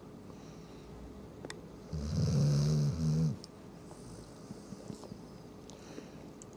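A golden retriever snoring in deep sleep: one loud, buzzing snore about two seconds in that lasts about a second and a half, with a brief break near its end.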